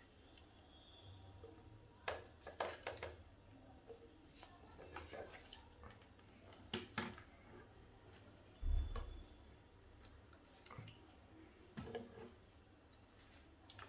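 Faint, scattered plastic clicks and scrapes of foam darts being pushed into the barrels of a Nerf Rough Cut 2x4 blaster, with one dull low thump a little under nine seconds in.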